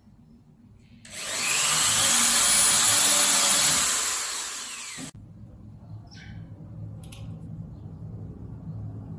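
A small power tool runs with a loud, high-pitched whirr for about four seconds, starting about a second in. It eases off and then cuts off abruptly, followed by a few faint knocks.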